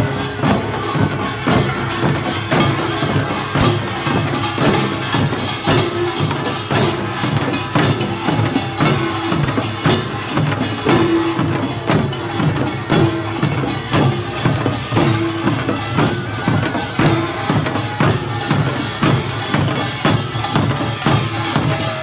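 Korean pungmul folk band playing: drums beating a fast, steady rhythm, with short repeated melodic notes over the drumming.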